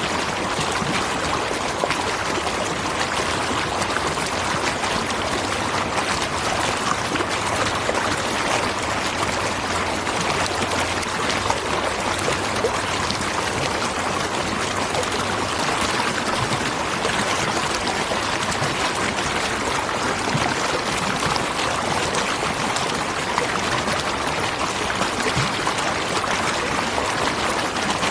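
Natural waterfall: water rushing and splashing in a steady, even flow.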